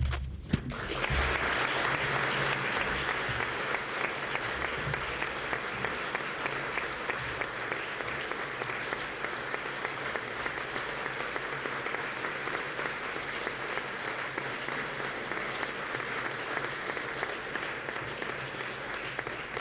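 An audience applauding, starting about a second in, holding steady and dying away near the end.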